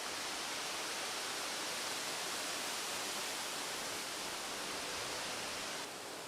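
Steady, even hissing outdoor ambience in a garden, with no distinct events; it steps down slightly in level near the end.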